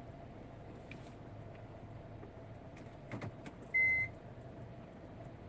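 Steady low background hum with a few faint clicks, then a single short, high electronic beep about four seconds in, the loudest sound.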